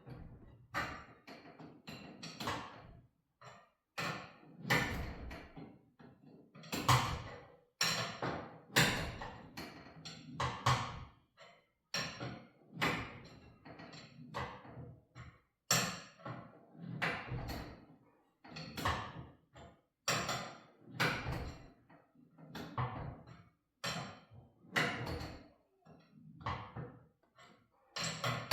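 Steel winding bars knocking and clanking in the winding cone of a garage door torsion spring as it is wound up by hand a quarter turn at a time, about one knock every second or two.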